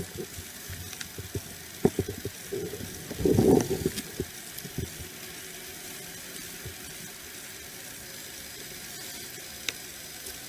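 Scattered knocks and rustling close to a body-worn camera's microphone, with a louder rustle about three and a half seconds in. After that there is only steady background noise.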